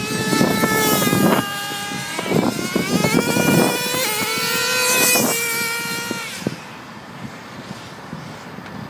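Traxxas Jato RC truck's small nitro engine revving as the truck is driven, its whine rising and falling in pitch with the throttle. It drops away about six and a half seconds in, leaving only a faint sound.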